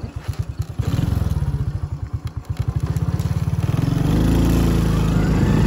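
Small motorbike engine starting up and running with a fast pulsing beat, then rising in pitch about four seconds in as the bike pulls away.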